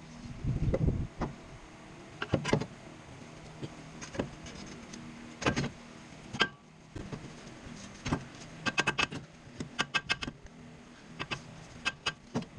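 Hand tools working on a car's front suspension: scattered metallic clicks and knocks, with short fast runs of clicking, like a ratchet being turned, about two-thirds of the way through and again near the end.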